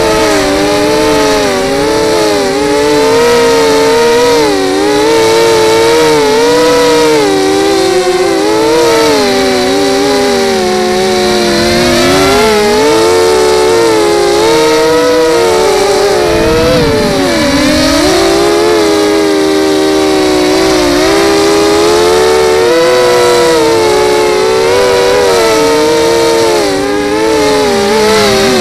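Lumenier 250 racing quadcopter's brushless motors and propellers running close up, a loud buzzing whine whose pitch rises and falls constantly with the throttle. About 17 seconds in the pitch drops steeply and then climbs back.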